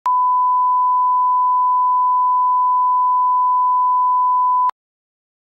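Steady, pure 1 kHz line-up test tone, the reference tone that accompanies colour bars at the head of a broadcast tape. It cuts off with a small click after about four and a half seconds.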